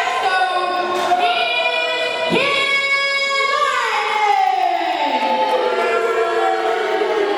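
Song with sung vocals, played as wrestling ring entrance music; about halfway through the voice slides down in one long falling note.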